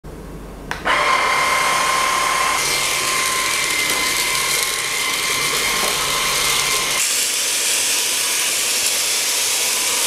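Cordless stick vacuum cleaner (iSuper VC1) switched on with a click of its power button, its motor spinning up to a steady high whine over the rush of suction air. The whine fades after a couple of seconds, leaving mostly the airflow hiss as it vacuums.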